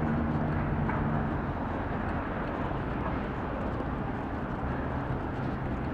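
Street traffic heard from a bicycle in city traffic: a vehicle engine running close by for about the first second and a half, then a steady mix of traffic noise.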